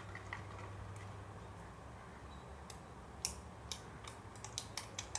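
A wooden stick working clear glue water slime: a few faint clicks at first, then a quick run of sharp, sticky clicks and pops in the second half as the stick pokes and pulls at the wet slime.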